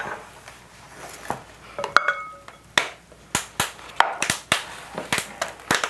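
A spoon and a measuring cup tapping and clinking against a glass mixing bowl as crushed pineapple is added, a dozen or so sharp taps. One clink about two seconds in rings briefly.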